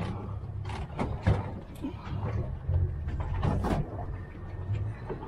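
Knocks and scrapes of a pot rope being hauled in over the side of a small boat, the sharpest knock about a second in, over the low steady rumble of the boat's motor and the sea.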